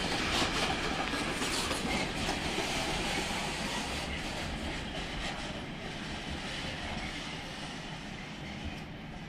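Freight train of covered sliding-wall wagons and hopper wagons rolling past on the rails, the wheels clattering over the rail joints. The sound fades steadily as the train moves away.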